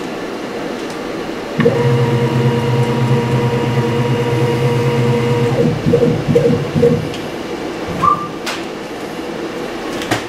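CNC milling machine's axis drive motor humming steadily as the head with the spot drill lowers toward the workpiece, then a few short stuttering jog moves before it stops; a click near the end.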